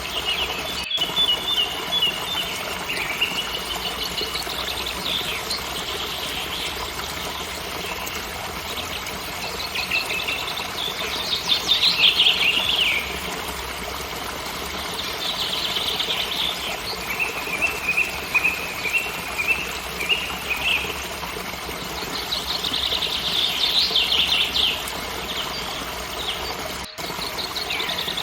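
Waterfall rushing steadily, with songbirds singing over it in repeated trills and runs of short chirps throughout.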